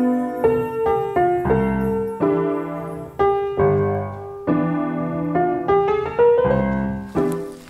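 Piano music: a slow melody of single struck notes over chords, each note ringing and fading before the next.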